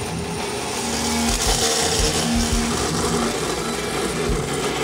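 A coolant-fed cold saw's circular blade cutting through 3-inch stainless steel exhaust tubing: a steady, dense grinding hiss over the saw motor's hum, loudest about halfway through the cut.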